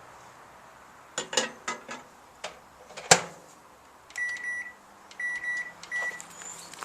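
Microwave oven being loaded: a few clicks and knocks, then the door shut with a sharp clack, followed by three high keypad beeps as the timer is set, with a low steady hum underneath.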